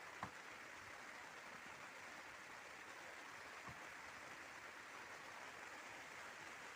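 Rain falling steadily on a tent's fabric roof, heard from inside as a faint, even hiss, with a faint tick about a quarter second in and another a little past halfway.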